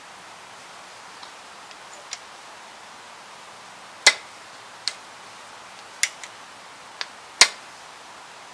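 A hand tool gripping and twisting a rusted, broken-off stud in a tractor casting, giving sharp clicks and ticks of metal on metal at irregular intervals. There are a few faint ones in the first couple of seconds, then about six louder ones in the second half, the loudest about four seconds in and near the end, over a steady hiss.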